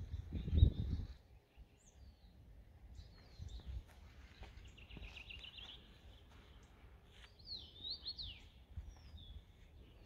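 Nightingales and other songbirds singing in short phrases: a rapid trill about halfway through and loud swooping whistled notes near the end. Low rumbling thumps on the microphone, loudest about half a second in.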